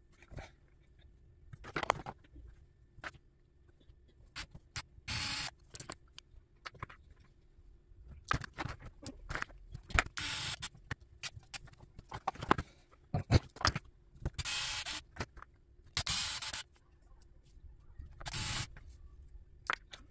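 A small cordless electric screwdriver running in several short spurts of half a second to a second, driving small screws into an RC car chassis. Between the spurts come sharp clicks and rattles of small parts being handled.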